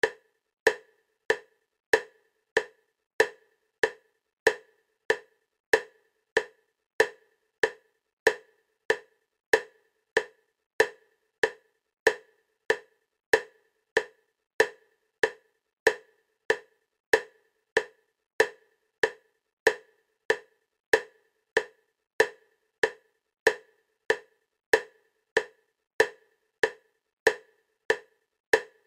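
EMDR bilateral-stimulation clicks: short, identical clicks at a steady 96 beats per minute, about one every 0.6 seconds, alternating side to side to pace the eye movements.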